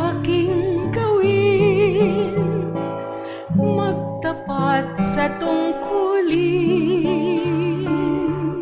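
A woman singing a Tagalog hymn with vibrato on long held notes, over acoustic guitar accompaniment.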